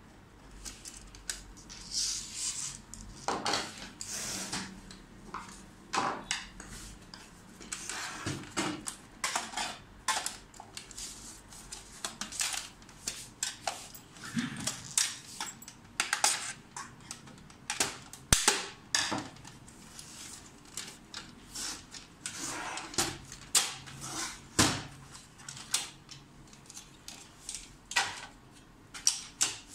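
Irregular clicks, taps and scrapes of hands and a screwdriver on an HP LaserJet P1102 printer's plastic and metal housing while it is being taken apart.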